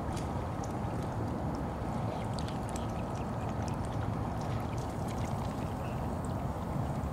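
Young Muscovy ducks dabbling and splashing in shallow water at a pond's edge, with scattered small ticks and wet sounds over a steady low rumbling noise.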